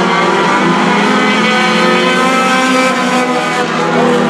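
A pack of four-cylinder compact race cars running at racing speed on the oval, several engines held at high revs at once. Their tones overlap in a loud, steady drone that shifts only slightly in pitch.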